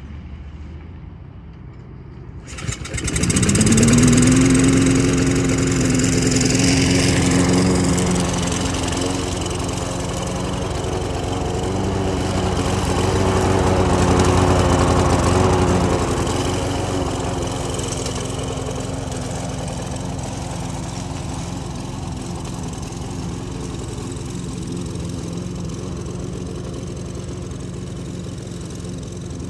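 Troy-Bilt push mower's small single-cylinder engine starting about two and a half seconds in, its pitch rising quickly to a steady run. It runs on as the mower is pushed through the grass, loudest around the middle as it passes close and growing fainter as it moves away.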